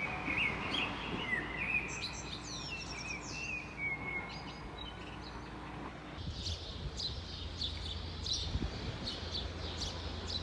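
Small songbirds singing: a warbling, gliding song for the first few seconds, then quick repeated high chirps from about six seconds on, over a low steady background rumble.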